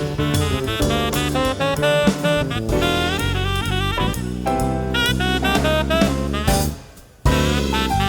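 Jazz music with saxophone over drums and bass, dropping out briefly near the end.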